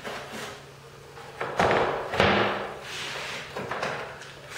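Half-inch MDF miter sled set down and shifted on the table saw top: two loud thuds about a second and a half and two seconds in, then a lighter knock as the bar clamps are handled.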